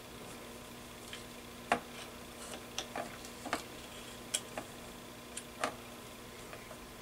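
Light irregular clicks and taps, about a dozen over four seconds, the sharpest about 1.7 s in, as an RF probe is moved around and knocks against parts inside an opened metal-cased mic tester. A faint steady hum runs underneath.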